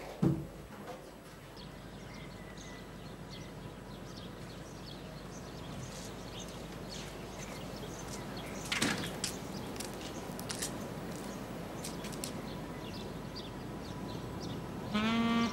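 Quiet outdoor ambience with a faint steady hiss and scattered light clicks of footsteps, with one brief louder sound about nine seconds in. A held musical note comes in near the end.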